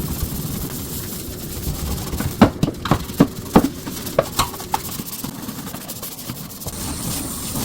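Kitchen cleaning sounds: a steady rushing hiss with a quick run of sharp knocks and clatters of hard items being handled in the middle.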